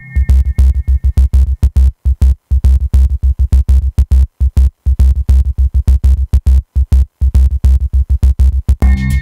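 Electronic dance music with a heavy bass beat, chopped into fast stuttering pulses that cut in and out.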